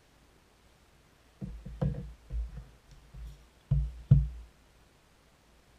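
Dull thumps and knocks of small cardboard boxes being handled and set down on a countertop, a handful of irregular knocks over about three seconds, the loudest two close together past the middle.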